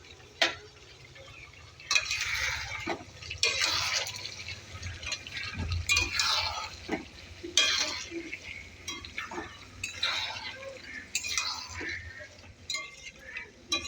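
A metal spoon stirring and scraping mutton with masala in a cooking pot. Repeated wet scrapes and metal-on-metal clinks come every second or so.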